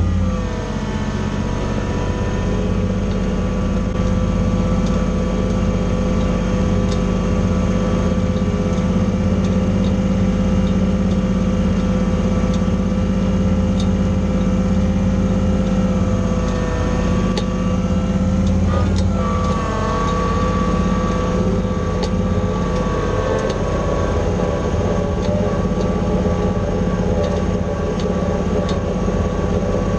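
Kubota BX25 sub-compact tractor's three-cylinder diesel engine running steadily under loader work, its pitch shifting a few times as the engine speed changes.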